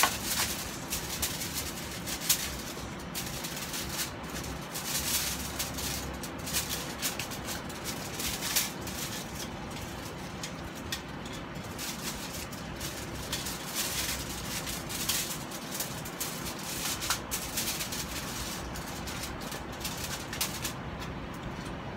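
Crumpled aluminium foil lining a roasting pan crinkling and rustling in irregular crackles as hands handle and stuff a whole raw chicken in it.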